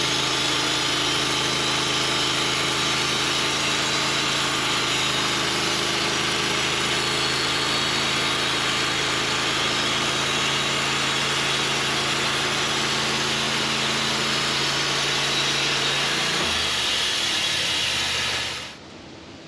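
Portable sawmill running as it saws a locust log: a steady engine note under a loud, dense saw noise. Near the end the engine note drops, and then the sound cuts off abruptly.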